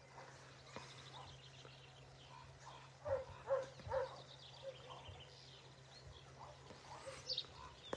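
A dog barking faintly three times in quick succession about three seconds in, over faint bird chirping and a low steady hum.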